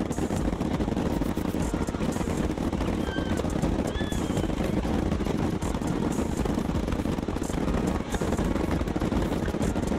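Aerial fireworks going off in a rapid, unbroken barrage of bangs and crackles, many shells bursting at once.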